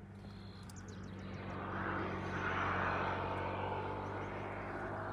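An engine runs steadily with a low hum. Over it a rushing noise swells to its loudest about halfway through and then eases off, like a machine or aircraft passing.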